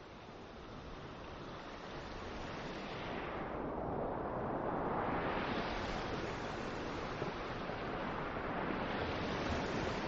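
Wind and road rush from travelling along a highway, a steady noise with no engine note standing out. It fades in and grows louder over the first few seconds, then holds steady.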